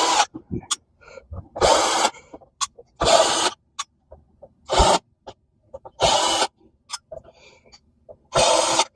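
Cordless drill-driver with a T10 Torx security bit running in short bursts of about half a second, six times with pauses between, backing out small screws from a plastic vacuum-cleaner floor nozzle.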